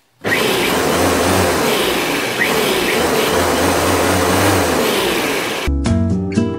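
Parkside PRM 1200 A1 electric lawnmower's 1200-watt motor running steadily with the blade spinning freely, the mower on its side with no grass to cut. The whirring cuts off suddenly near the end and guitar music begins.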